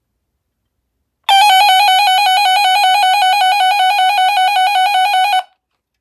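A radio's built-in electronic siren sounding a fast warble: a loud, buzzy tone flipping rapidly between two pitches, about seven times a second. It starts abruptly about a second in and cuts off after about four seconds.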